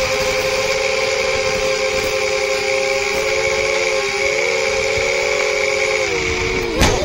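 Motors and propellers of a small RekonFPV Rekon 3 FPV quadcopter whining steadily in flight, several close pitches from the separate motors. Near the end the pitch falls as the motors spool down, and there is a knock.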